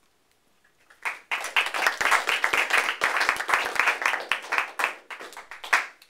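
A group of people applauding, starting about a second in and thinning out to a few last claps near the end.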